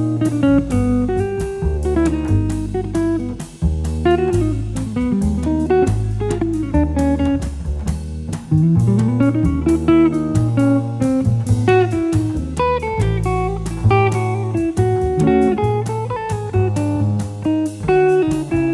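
Background music: guitar-led track with a bass line and a steady beat.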